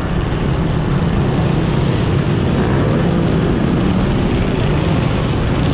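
Dirt bike engines running together in a pack, a loud, steady drone that wavers slightly in pitch.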